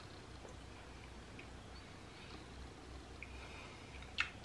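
Quiet room tone with a few faint mouth sounds from a man chewing a mouthful of fried sea anemone and holding back a gag. One sharp click about four seconds in.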